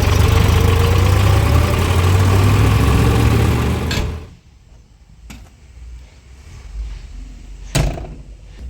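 A diesel engine of a backhoe loader or tractor runs loudly and steadily, then cuts away abruptly about four seconds in. A few knocks follow, with a sharp thump near the end.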